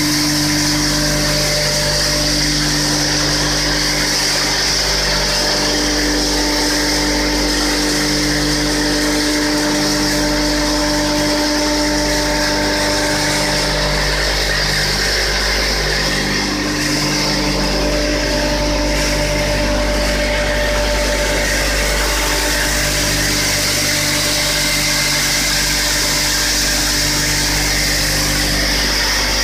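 JLMF-V800 wood sawdust machine running together with its blower fan: a loud, steady machine drone with several constant hums over an even rushing noise.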